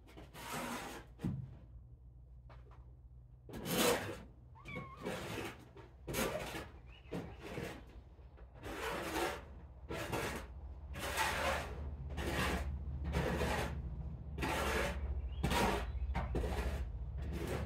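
Kittens meowing over and over, short cries about once a second from about four seconds in, over a low steady hum.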